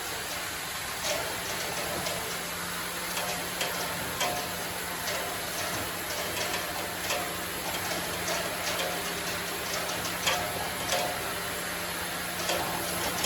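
Sawmill machinery running with a steady low hum, with irregular light knocks and clicks throughout.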